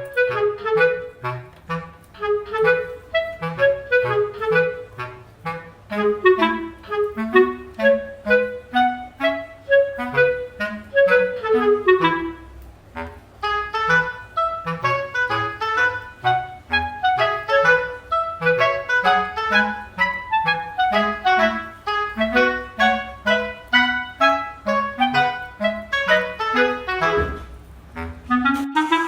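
Background music: a fast melody of short, quick notes over a steady low accompaniment, changing abruptly near the end.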